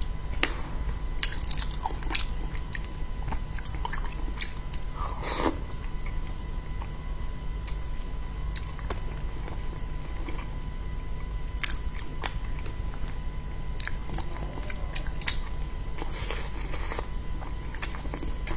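Close-miked chewing and biting of braised fish pieces, with wet mouth clicks and smacks scattered irregularly. Two longer, noisier mouth sounds come about five seconds in and near the end, over a steady low hum.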